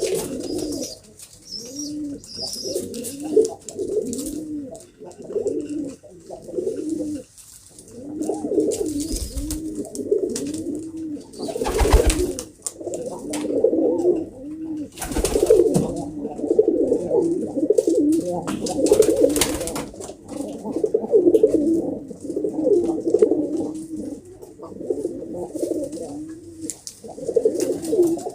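Domestic pigeons cooing over and over, several birds' rise-and-fall coos overlapping. A couple of brief, louder rustling knocks come near the middle.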